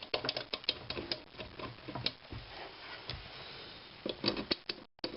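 Irregular light clicks and taps of metal hand tools on metal, as a scriber marks out the position of a mounting hole on the motor's metal base.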